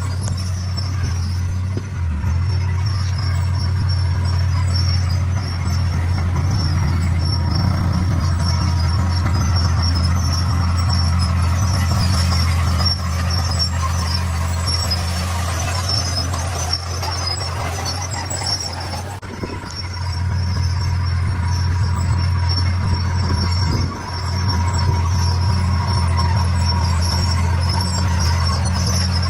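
D41 bulldozer's diesel engine running with a steady low drone, dipping briefly about 19 seconds in and again about 24 seconds in.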